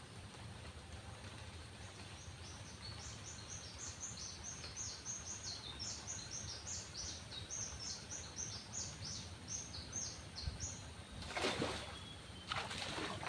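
A songbird singing a long rapid run of short high chirps, about three or four a second, over a low steady outdoor hum. Near the end come two loud bursts of rushing, rustling noise.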